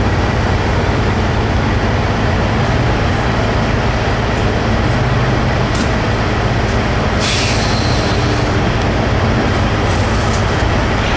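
Semi truck's diesel engine running steadily at low revs, with a short burst of air hiss about seven seconds in.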